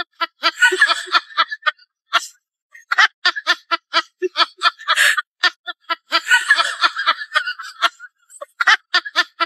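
Snickering laughter in quick, evenly spaced bursts of about four or five a second, coming in several runs with short breaks.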